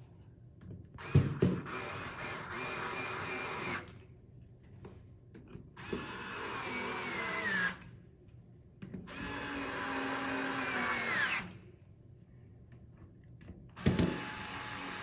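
Power drill tightening screws in four runs of about two seconds each. At the end of each run the motor's whine falls in pitch as it is released.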